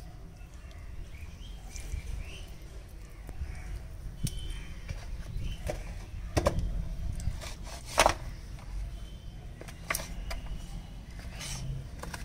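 Kitchen knife cutting goat kidneys on a wooden cutting board: four sharp knocks of the blade striking the board in the second half, the loudest about two-thirds of the way through. Birds chirp faintly now and then over a low steady rumble.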